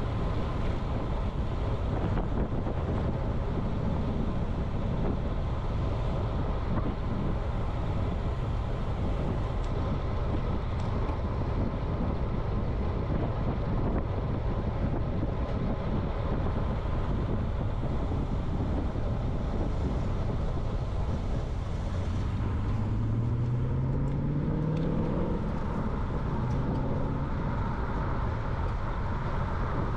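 Steady rush of wind on the microphone with tyre and road noise from a road bicycle riding along at speed. Near the end, a motor vehicle's engine rises in pitch for a few seconds.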